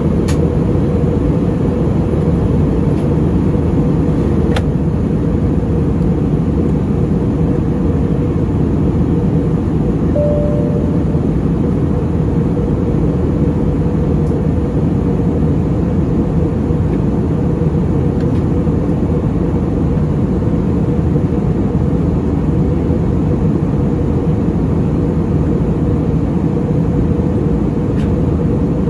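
Steady drone of engines and airflow inside the cabin of an Airbus A320neo airliner in flight, with a steady hum running through it. A short tone sounds about ten seconds in.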